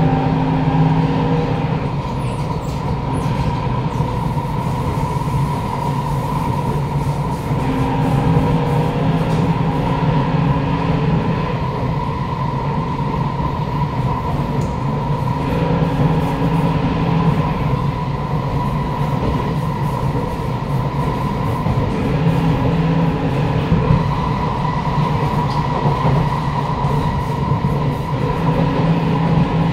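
Kawasaki Nippon Sharyo C751B metro train running at speed, heard from inside the car: a steady motor drone and whine over the rumble of wheels on rail. Its lower notes come and go every few seconds.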